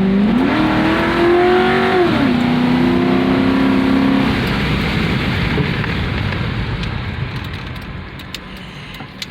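Ford Crown Victoria's 4.6-litre V8 accelerating hard: the engine note climbs, drops at an upshift about two seconds in, and climbs again. After about four seconds the engine note fades as the throttle is lifted, leaving a fading rush of road and wind noise.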